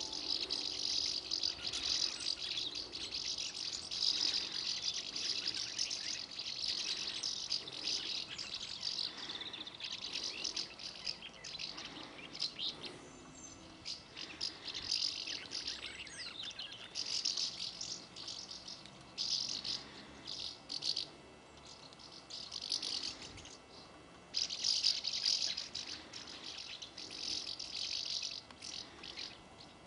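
A flock of house martins twittering: many high, dry chirrups overlapping in a dense chatter that swells and thins out in waves several times.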